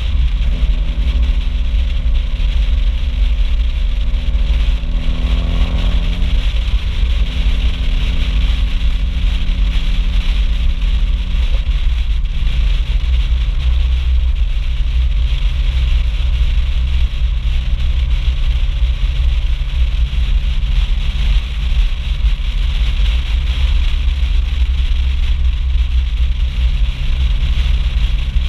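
Exhaust of a Mitsubishi Lancer Evolution IV's turbocharged 2.0-litre four-cylinder while the car is driven, its note changing pitch around 6 seconds in and settling lower from about 12 seconds on. A heavy low rumble of wind on the spoiler-mounted microphone lies under it, with a steady rush of air and road noise.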